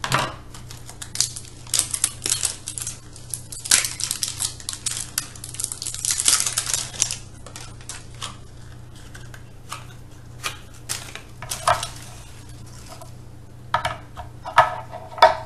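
Small plastic toy containers being handled and opened by hand: a run of light plastic clicks and clatters, with a longer scraping rustle about six seconds in and a few sharper snaps near the end.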